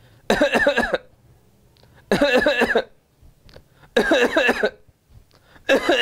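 A man deliberately coughing in separate bouts, each a short ragged run of coughs, with a brief pause between bouts: three bouts, and a fourth starting near the end. It is a demonstration of the 'cough in three paroxysms' that homeopaths link to cuprum metallicum.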